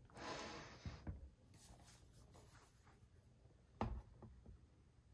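Closed aluminium MacBook laptops handled on a desk: a soft sliding rub in the first second, a couple of light taps, then one sharp knock a little under four seconds in as one laptop is laid on top of the other.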